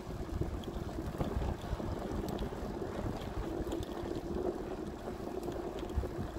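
Wind buffeting the microphone over the low rumble of a bicycle rolling along a concrete path, with a steady hum underneath and a few faint high ticks.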